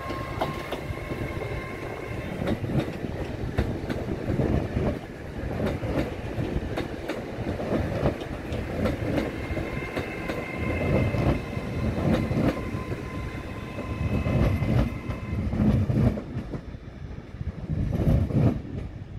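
Class 805 unit 805002 passing and moving away, its wheels rumbling and clattering over rail joints and points in uneven knocks, heaviest in the second half. A faint steady whine is heard at the start and again through the middle.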